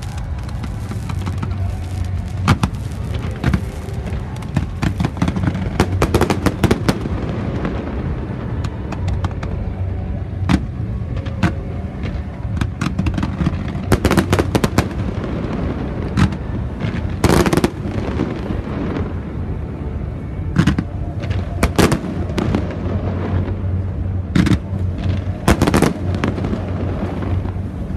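Fireworks going off over water: irregular sharp bangs and crackling bursts, in clusters, loudest about two-thirds of the way through, over a steady low drone.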